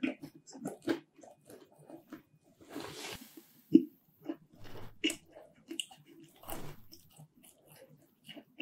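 Close-up chewing of pineapple pizza: a run of short, crisp mouth clicks and crunches from the crust. Two longer breathy stretches come about three and six and a half seconds in.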